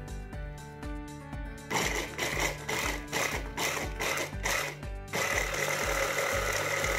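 Makoloce hand blender's chopper attachment grinding walnuts. The motor comes in as short, quick pulses about two seconds in, then runs continuously with a steady whine from about five seconds in.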